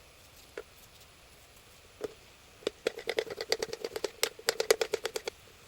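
Rapid knocking of a kitchen utensil, about five or six sharp strikes a second. It starts after a single knock a little over two seconds in and stops shortly before the end.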